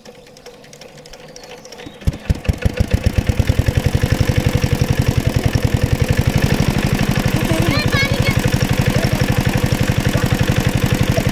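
A small water-pump engine starts about two seconds in: its knocks quicken and settle into a steady, rapid, even beat as it runs, drawing water out of the pond through the suction hose.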